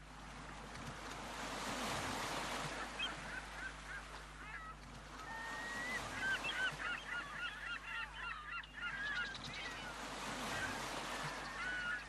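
Seagulls crying over the wash of sea surf: many short, bent calls, thickest in the middle, over a steady rushing of waves.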